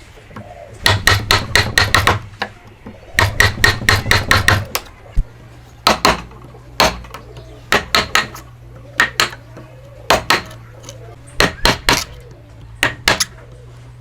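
Hammer blows during hand joinery: two quick flurries of rapid strikes in the first five seconds, then slower single and paired strikes. A steady low hum sets in about five seconds in.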